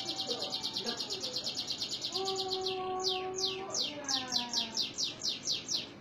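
Domestic canary singing: a fast, even trill of high down-slurred notes, which breaks off about three seconds in and resumes as a run of sweeping notes that quicken, stopping just before the end.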